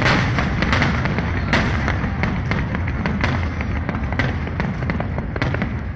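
Fireworks display going off in quick succession: many sharp bangs and crackles over a steady low rumble.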